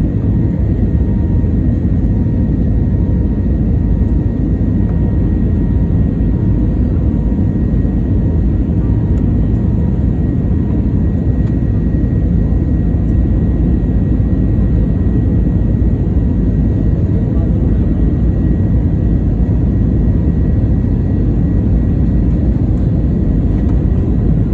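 Airbus A320neo jet engines and airflow heard from inside the passenger cabin during the climb after takeoff: a steady, loud, deep rumble with a faint high whine on top.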